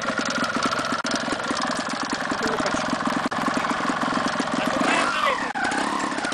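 Trials motorcycle engine idling steadily, its firing pulses fast and even.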